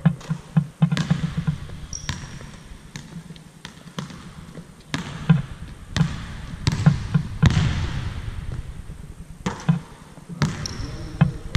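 Basketball bouncing on a hardwood court, an uneven series of sharp bounces with echo after them in a large empty arena.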